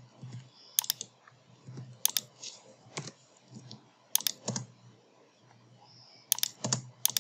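Clicks of a computer keyboard and mouse, sparse and irregular, several coming in quick pairs.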